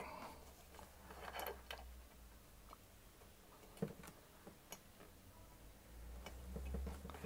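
A few faint clicks and taps of the aluminium parallel fence being handled against the metal base of a Proxxon TBS 12 drill press, with a faint low hum underneath.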